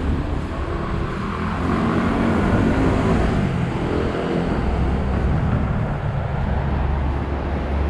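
City street traffic: a motor vehicle's engine passing close by, swelling about two seconds in, with a deep low rumble through the second half.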